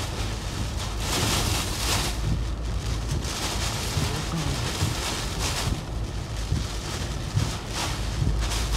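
Hurricane eyewall wind and driving rain, rising and falling in gusts over a steady deep rumble of wind buffeting the microphone.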